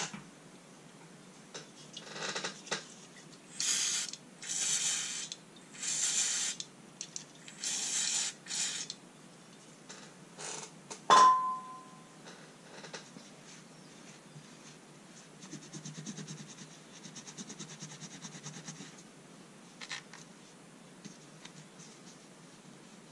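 A steel coil spring from an old spring balance being rubbed clean in a cloth shop towel, in short scrubbing strokes. About eleven seconds in there is a single sharp metallic clink with a brief ring. Later comes a quick, even run of small ticks as the cloth is drawn along the coils.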